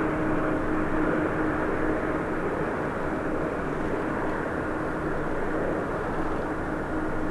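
Airbus A350 on final approach, its Rolls-Royce Trent XWB turbofans at low approach thrust: a steady jet rumble with a held engine whine.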